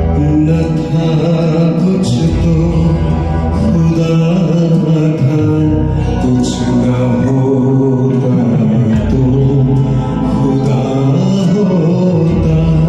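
Ghazal music: sustained, slowly wavering held notes over deep bass notes that come and go every few seconds.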